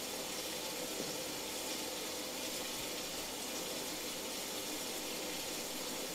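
Steady sound of rain, an even hiss that does not change or break.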